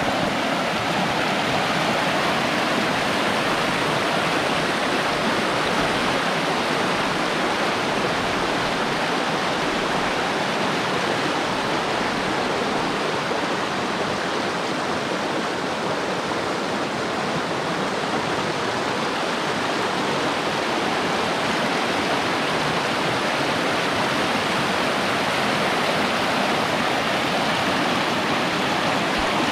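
Rushing river water: a steady, unbroken rush.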